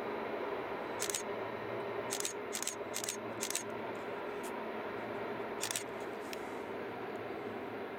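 Distant Rhaetian Railway train running along a hillside track: a steady rumble, with several short high-pitched sounds, most of them between about two and three and a half seconds in and one more near six seconds.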